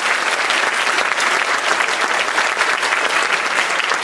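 Theatre audience applauding steadily at the end of a song number.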